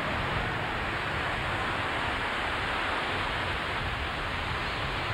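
Ocean surf breaking on the beach, a steady unbroken rush.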